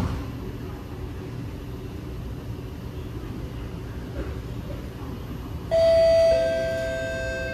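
Cabin rumble of an SMRT Kawasaki–Nippon Sharyo C751B metro train running. About six seconds in, a two-note descending PA chime rings out and fades slowly, the signal that an onboard announcement follows.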